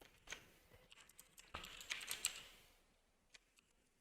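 Typing on a computer keyboard: a few scattered keystrokes, then a short run of them about a second and a half in.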